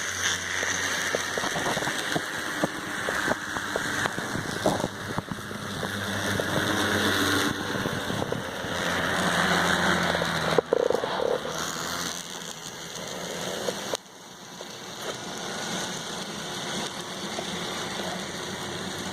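N scale model train running on the track: a steady small-motor whir with irregular clicks of the wheels over the rails. About two-thirds of the way through the sound drops suddenly, then carries on more quietly.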